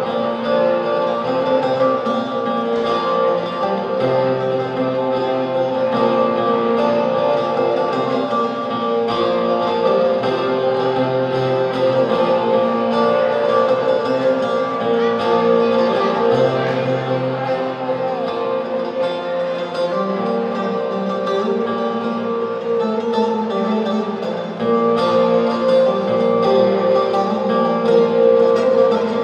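Music played on a plucked long-necked lute.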